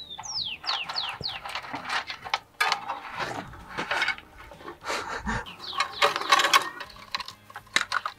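Rustling and scraping of a Christmas light string as it is wound around a wire frame on a wooden board. A bird calls over it in a run of quick falling chirps about half a second in, and again near six seconds.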